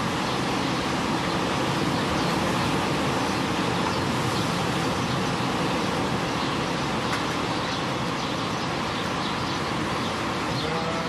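Steady rush of wind and rain around and on a potting shed, an even unbroken noise.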